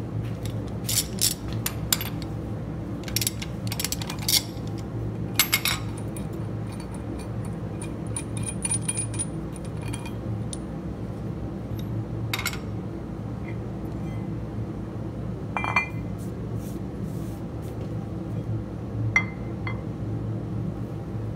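Aluminium diesel-engine pistons being set down and shifted by hand on a steel milling-machine table, giving scattered sharp metallic clinks and knocks. A steady low hum runs underneath.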